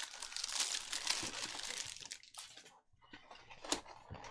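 Cellophane shrink wrap crinkling as it is pulled off a cardboard trading-card box, dense and crackly for about two seconds. After a short pause, a couple of sharp ticks near the end as the box is handled.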